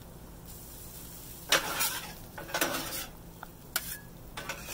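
Metal spatulas scraping across a Blackstone steel flat-top griddle, turning and chopping chicken and egg in about four short strokes from about one and a half seconds in, over a faint sizzle.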